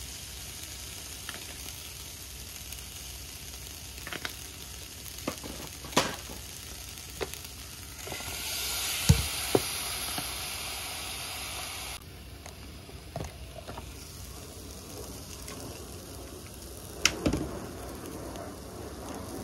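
Chicken breast pieces sizzling on an electric waffle maker: a steady hiss with scattered clicks and knocks. The sizzle is louder for a few seconds in the middle, where the strongest knock comes about nine seconds in.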